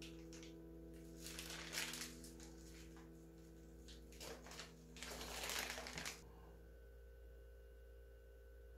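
Thin plastic piping bag crinkling in several short bursts as hands twist and squeeze it to push a yolk filling toward the metal tip. The crinkling stops about six seconds in.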